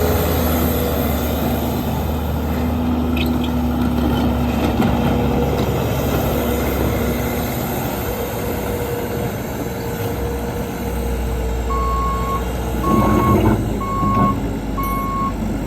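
Bobcat T450 track loader's diesel engine running steadily with a held whine. About twelve seconds in, its backup alarm starts beeping about once a second as the machine reverses.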